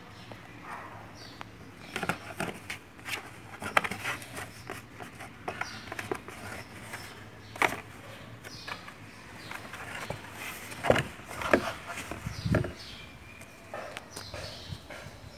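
Siamese kitten scrambling inside a cardboard shoebox: irregular scratching, scraping and sharp knocks on the cardboard, with a dull thump about twelve seconds in.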